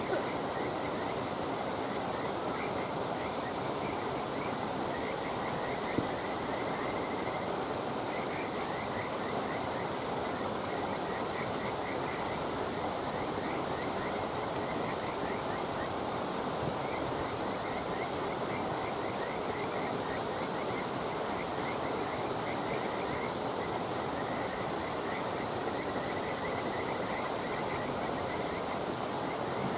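Frogs calling in rapid pulsed trills over a steady hiss, with a short high chirp repeating about every two seconds and a single crackle from the campfire about six seconds in.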